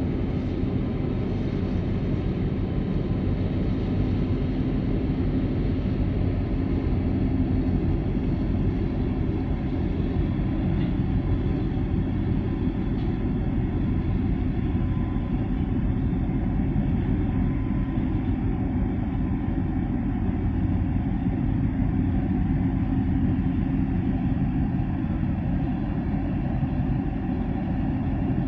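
Container ship's diesel engine and propeller giving a steady low rumble with a constant hum as the ship passes close by under way.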